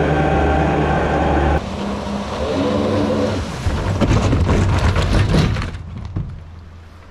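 Mini jet boat's 1053cc Yamaha four-stroke engine running steadily at high revs, then dropping off abruptly about a second and a half in and running on lower. A noisy rush with rapid crackles follows and dies away near the end.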